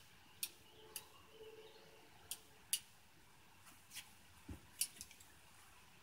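Sharp metallic clicks from an 1889 Bodeo revolver being loaded by hand, cartridges going in through the loading gate and the cylinder turned round, about eight clicks spread out, with a soft thump about four and a half seconds in.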